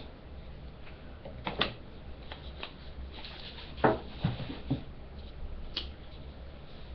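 Soft handling noises: light rustling with a few scattered clicks and small knocks as objects are moved about close to the microphone, over a low steady hum.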